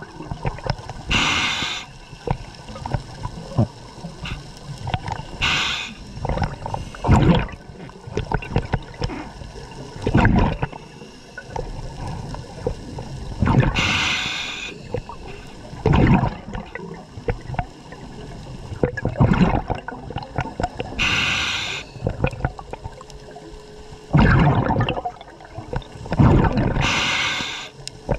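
Scuba diver breathing underwater through a regulator: a short hiss on each inhalation, about five times, alternating with low bubbling rushes of exhaled air.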